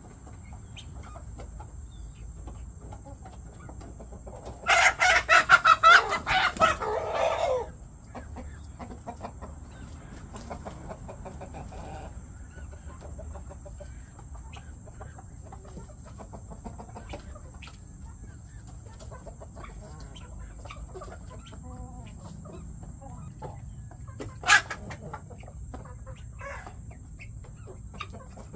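A mixed backyard flock of chickens clucking softly while feeding. A rooster crows once about five seconds in, a loud pulsed call of about three seconds, and there is a brief sharp sound near the end.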